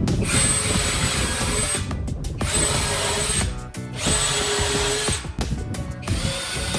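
Power tool running in four short bursts of a second or two each, with a high steady whine, stopping briefly between them.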